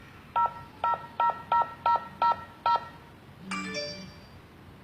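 Password keypad on a Wi-Fi video doorbell lock beeping seven times as a code is keyed in, each press a short two-tone beep, about three a second. A little under a second later a single longer tone sounds and fades.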